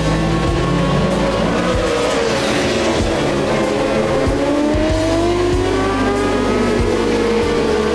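Racing motorcycle engines at high revs as bikes run through a bend, the engine notes rising and falling with the throttle, one climbing steadily through the second half as a bike accelerates. Background music plays underneath.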